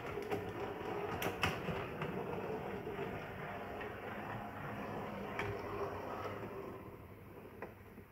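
Model tram running along the layout track, its small motor and wheels humming steadily with a few sharp clicks over the rail joints and points. The sound fades near the end as the tram passes by.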